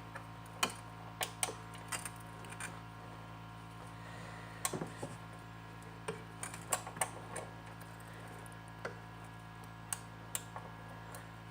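Scattered light metallic clicks and taps of a hand wrench working on a lawnmower's engine mount bolts, irregular and a few at a time, over a steady low hum.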